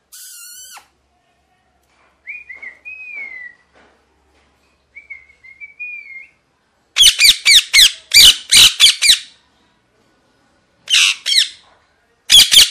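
Young parakeet calling: a short harsh squawk, then soft whistled chirps, then runs of loud, rapid harsh screeches about seven seconds in and again near the end, the begging calls of a young parrot being hand-fed.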